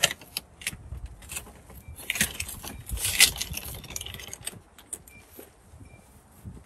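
Crinkling, rustling and light knocks as a bag of kitty litter is handled and set down in a cat house. The noise is densest from about two to three and a half seconds in, then trails off into a few scattered rustles.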